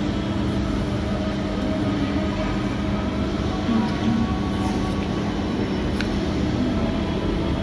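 Steady room hum of air conditioning with a low drone, and a single light tap about six seconds in as a card is handled on the table.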